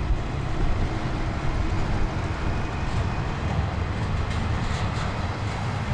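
Double-stack container freight train rolling past, steel wheels on rail and well cars giving a steady low rumble as the train gets moving again after a stop.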